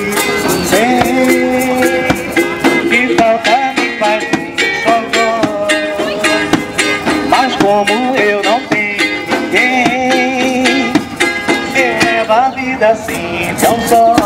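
Upbeat music: a plucked string instrument over a steady, quick percussive beat, with a melody line moving above it.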